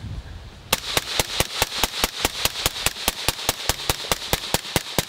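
Suppressed AR-style rifle firing rapidly, with its silencer threaded on over the muzzle brake: a long string of evenly spaced shots, about five a second, starting under a second in.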